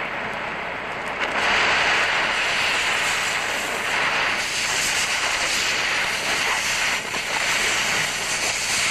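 Oxy-acetylene cutting torch hissing steadily as its cutting jet slices through a rusted-on nut beside the bolt, with molten slag blowing off. The hiss grows louder about a second in.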